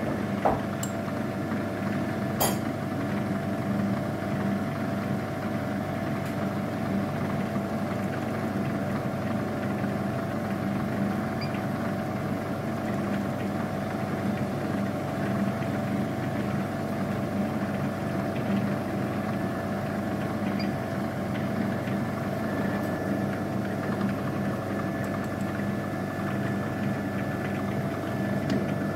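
Milling machine running steadily, its spindle motor humming and whining while a small end mill cuts along the edge of a metal block clamped in a vise. A couple of sharp ticks come in the first few seconds.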